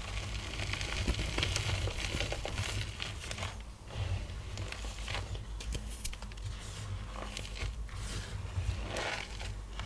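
Blocks of gym chalk crushed and crumbled in the hands, a dense crackling of small crunches that comes in several bursts, over a steady low rumble.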